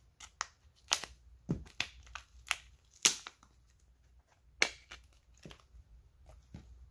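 Thin clear plastic crinkling as it is handled by hand, a string of sharp crackles at irregular intervals.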